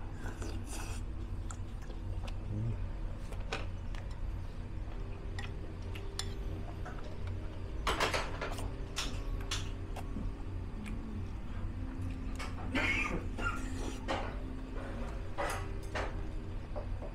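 A person eating ramen: chopsticks and a spoon clink now and then on ceramic bowls, with short slurping mouth noises, over a steady low hum.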